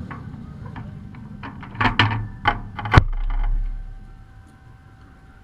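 A run of sharp clicks and knocks, the loudest a hard clunk about three seconds in followed by a brief low rumble, as the kart's quick-release steering wheel is handled in the steel-tube cockpit.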